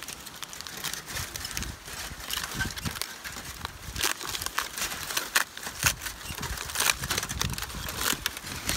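Aluminium foil crinkling as it is pulled open by hand from foil-wrapped baked potatoes: a rapid, irregular run of sharp crackles, louder in the second half.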